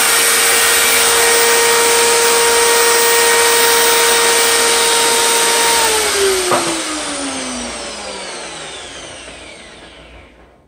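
Miter saw's electric motor running at full speed with a steady whine, then switched off about six seconds in and coasting down to a stop, its pitch falling over the next four or five seconds. A single knock comes shortly after the switch-off.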